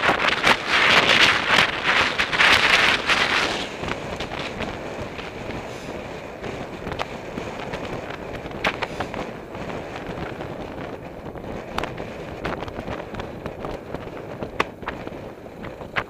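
Wind buffeting the helmet camera's microphone as a Sinner Mango+ velomobile rides along, loud at first and dropping sharply about three and a half seconds in, leaving a lower steady road and tyre noise. Occasional sharp clicks sound through it.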